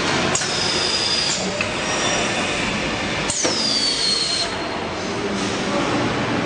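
Automatic sleeve sealer and shrink tunnel packaging machine running with a steady mechanical noise. A high squeal sounds twice, each time starting with a click: a short steady one about half a second in, and one falling in pitch at about three seconds.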